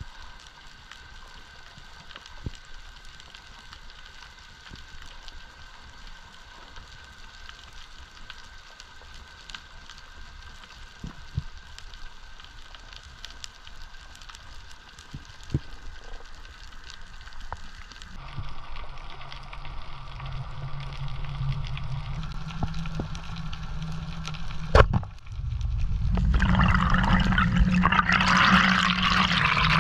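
Underwater sound picked up by a diving camera: a low hiss with faint steady tones and scattered small clicks, then, late on, one sharp loud crack followed by loud rushing, bubbling water as the camera moves fast through the water.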